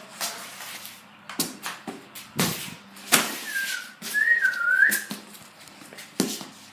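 A person whistling briefly, one wavering tone of under two seconds starting a little over three seconds in, among several sharp knocks and thumps.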